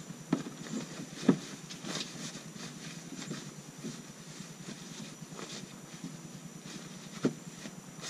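Fabric tire cover with a sprung ring being handled and fitted over a trailer tire: rustling, with a few sharp knocks, the loudest about a second in and another near the end.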